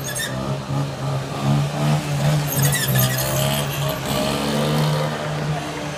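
Quad bike (ATV) engine held at high revs in a wheelie, its note swelling and easing with the throttle. A brief burst of higher, harsher sound comes about halfway through.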